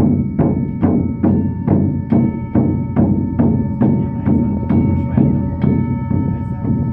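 Drum beaten in a steady even rhythm, about two and a half deep strokes a second, with a singing bowl ringing continuously above the beats.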